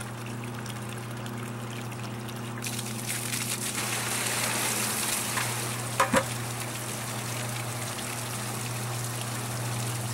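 Small pump bailing rainwater out of a rowboat, running with a steady low hum while water from its discharge hose pours and splashes. The splashing grows louder a little over a quarter of the way in. Two quick knocks come about six seconds in.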